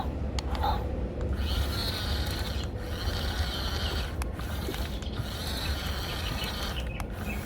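Remote-control toy bulldozer's small electric motors and geared tracks whirring as it drives, in three runs separated by brief pauses, over a low rumble.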